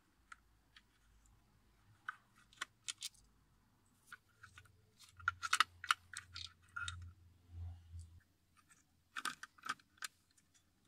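Screwdriver working T20 Torx screws out of a plastic steering wheel trim: scattered faint clicks and small scrapes of the tip seating and turning in the screw heads.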